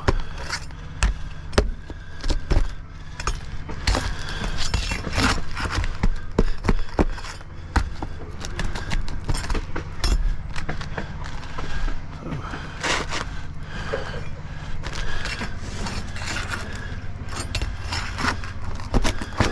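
Scraping and clicking of a tool being worked under an asphalt shingle to free a stuck roofing nail, many short irregular scrapes and clicks throughout, over a steady low hum.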